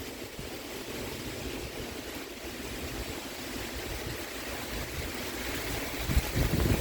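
Steady storm rain hissing, with wind gusting against the phone's microphone in low rumbles near the end.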